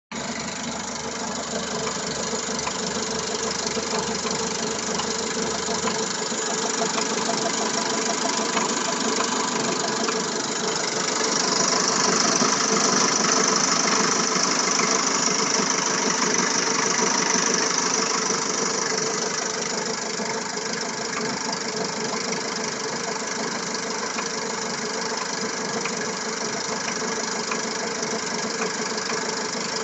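Car engine idling with a steady rapid knock. The knock persists even with a new cam phaser, water pump and timing drive and fresh oil, and its cause is unknown to the owner. The sound swells louder and brighter for several seconds around the middle.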